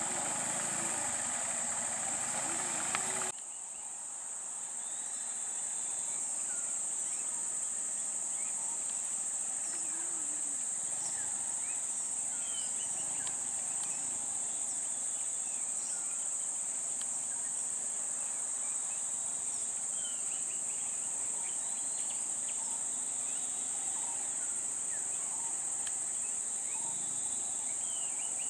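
Steady high-pitched drone of insects from the roadside forest. For the first three seconds an idling auto-rickshaw engine runs underneath and stops abruptly.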